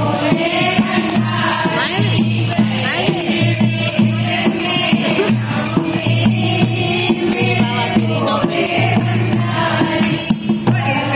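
A group of women singing a Shiva bhajan together, led by one voice at a microphone, with hand clapping and a rattling percussion keeping a steady beat.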